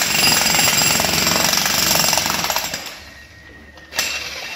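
Makita HM1306 electric demolition hammer breaking concrete, its chisel hammering rapidly and continuously. The hammering eases into a brief lull about three seconds in and starts again sharply near the end.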